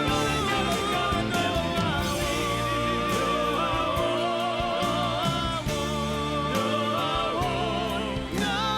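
A song playing: a singing voice with wavering vibrato over steady sustained instrumental accompaniment.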